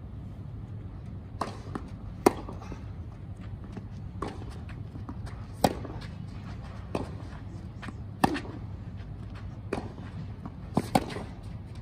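Tennis rally on a clay court: a ball struck back and forth, sharp racket hits about every one and a half seconds, alternating between the near player's louder shots and the far player's fainter ones, over a steady low hum.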